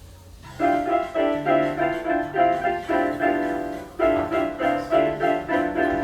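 Keyboard music: repeated chords struck in a steady rhythm over a simple bass line, starting about half a second in.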